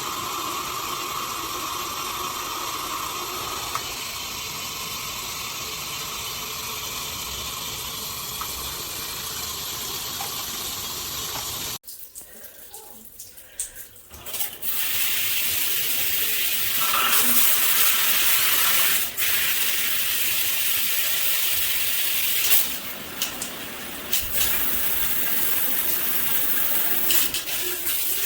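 Water spraying from a shower head. It cuts off abruptly about 12 seconds in, then a few seconds later it runs again, louder and hissier, with a few brief dips.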